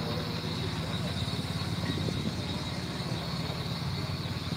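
The 150 hp J.I. Case steam traction engine running close by: a steady low mechanical hum with a fast, even beat, over a constant high hiss.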